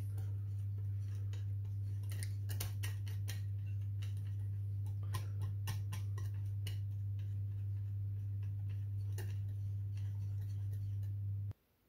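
Wire whisk beating thin chickpea-flour batter in a glass bowl, its wires clicking irregularly against the glass. A steady low hum runs underneath and stops shortly before the end.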